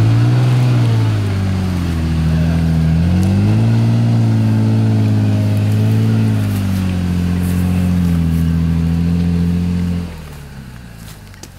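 Toyota Tacoma pickup engine revving up and down under load as the truck climbs a slick, muddy hill, its pitch rising and falling several times. The engine sound drops away suddenly about ten seconds in.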